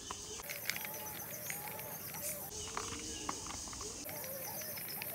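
Crickets calling in a high continuous trill that breaks off about halfway through and starts again, with pet pigeons cooing softly in repeated low calls. Faint small clicks come from a screwdriver turning screws into a plastic toy car.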